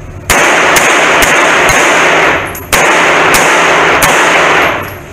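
Handgun shots fired in an enclosed shooting bay: about seven shots in two strings, four then three, with a short break about two and a half seconds in. Each string is smeared into a long wash of noise that dies away after the last shot.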